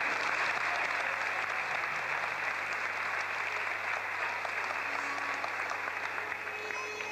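Audience applauding, a steady patter of many hands clapping that slowly tapers off.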